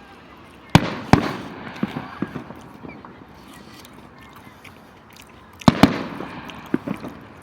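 Aerial fireworks shells bursting: a pair of sharp bangs about a second in, followed by a scatter of smaller pops, then another pair of bangs and pops near the end.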